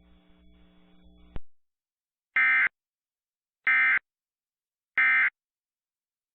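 Emergency Alert System end-of-message (EOM) tones: three identical short bursts of SAME digital data, each about a third of a second long and a little over a second apart, signalling the end of the alert message. A faint hum cuts off just before the first burst.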